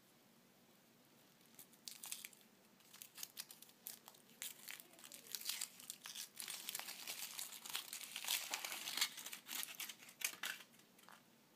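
Thin foil wrapper being peeled and torn off a chocolate surprise egg, crinkling in irregular crackly bursts that start about two seconds in and die away near the end.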